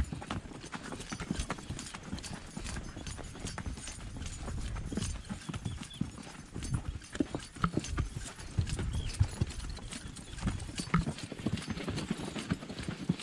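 A horse's hooves clip-clopping on a rocky dirt trail: an uneven run of hoofbeats.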